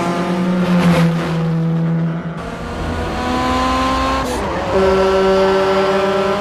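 Honda Civic engines revving hard at speed, their pitch gliding and stepping up and down as they shift gears. A louder, steadier engine note comes in about two-thirds of the way through.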